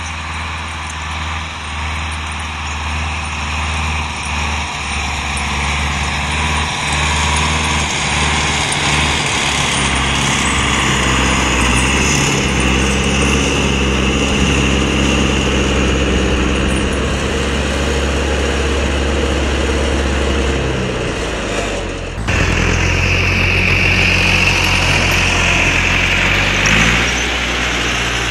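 John Deere 440A log skidder's diesel engine running as the machine drives closer, growing steadily louder. After a break about two-thirds through, the engine is close by, and near the end it briefly revs up.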